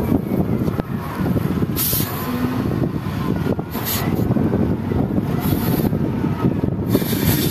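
Wheel loader's diesel engine running hard while it raises and tips its bucket over a dump truck, with short bursts of hiss every second or two.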